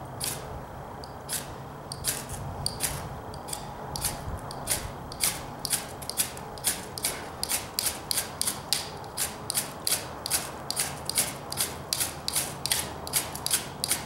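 Ferrocerium (ferro) rod scraped with a small knife blade, a run of short, sharp rasping strikes throwing sparks into a bird-nest tinder bundle. The strikes are spaced out at first, then come quickly, about two to three a second.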